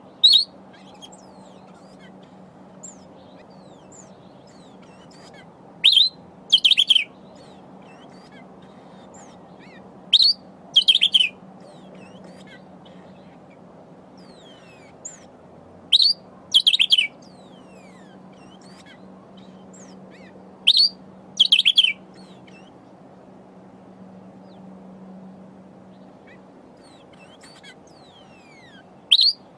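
Sombre greenbul calling: loud, sharp calls, mostly in pairs of a short note followed by a longer one, repeated about every five seconds. Faint thin falling notes sound between them.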